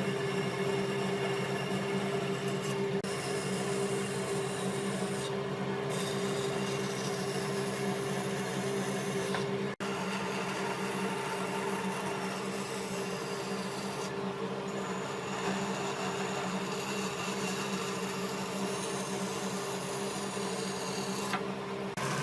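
A power tool running steadily on wood: a constant machine hum with a rasping, rubbing noise over it. The sound drops out for a moment about ten seconds in.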